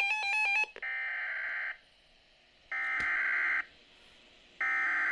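A stepping electronic tone pattern cuts off under a second in. It is followed by three bursts of SAME digital data tones, each just under a second long with about a second between them: the coded header that marks the start of a Weather Radio alert message.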